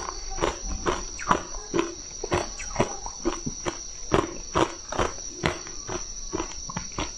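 Ice cubes being crunched between the teeth close to a lavalier microphone, about two crunches a second, with a steady high-pitched whine underneath.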